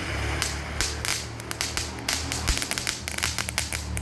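Firework crackling in a rapid, irregular string of sharp pops that starts about half a second in, over steady background music.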